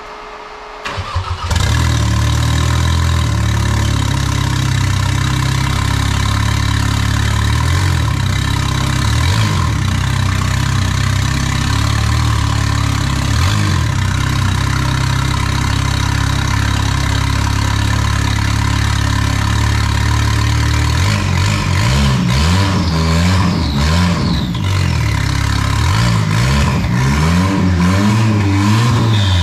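Freshly installed Audi TT Cup 2.0 TFSI turbocharged four-cylinder race engine starting: a brief crank about a second in, then it catches and idles steadily. About twenty seconds in it is revved in repeated blips that rise and fall.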